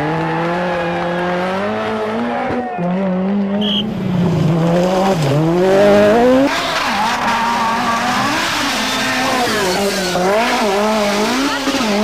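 Group B rally car engine running hard, its pitch held steady at first, then climbing and dropping again and again as the driver works the throttle and gears, with quick rises and dips near the end.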